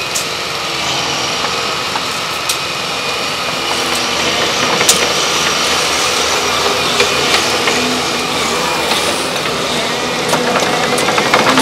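Diesel engines of Volvo excavators running steadily, growing somewhat louder near the end, with a few sharp metallic clicks or knocks in between.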